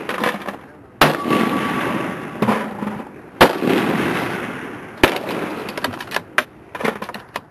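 Three gunshots about two seconds apart, each sharp crack followed by a long rolling echo that dies away. The third shot is weaker, and a few light clicks follow.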